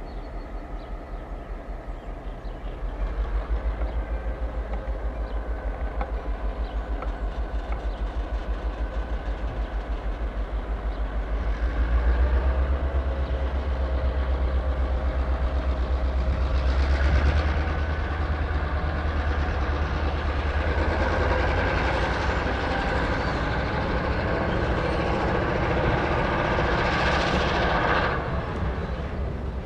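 Herzog tie-laying train's long string of flatcars rolling past on the rails: a steady rumble of wheels on track that grows louder about three seconds in and stays loud.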